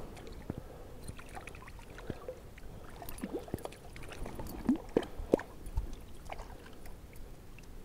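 Light splashing, trickling and plinking of water as a hand dips into a shallow creek to take hold of a small brook trout, with a cluster of short plinks and splashes in the middle.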